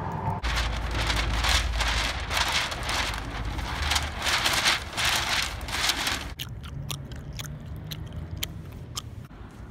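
Wind rumbling on the microphone while a large paper sheet rustles and flaps in repeated bursts of hiss. About six seconds in this gives way to a string of sharp, crisp clicks of close-up chewing.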